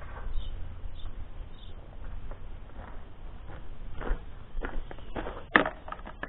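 Footsteps on gravelly grass and handling noises, with a few sharp knocks in the second half, the loudest about five and a half seconds in, over a low steady rumble.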